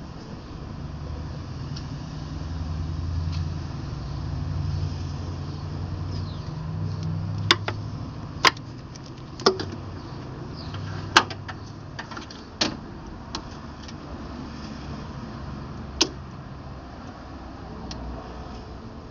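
A low, uneven vehicle rumble in the first half, then about half a dozen sharp, separate clicks and knocks of tools on the engine as the intake is fitted.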